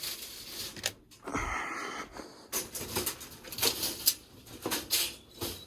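Rustling and knocking as young rabbits are handled and weighed, a string of short sharp noises through the second half, with a breathy wheeze lasting about half a second around a second and a half in.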